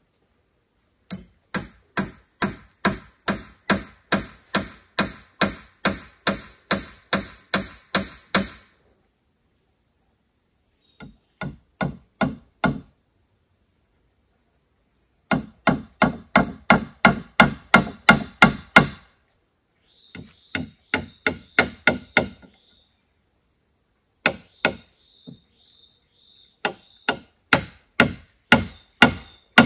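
A hand tool striking wood again and again, about three blows a second, in several runs broken by short pauses.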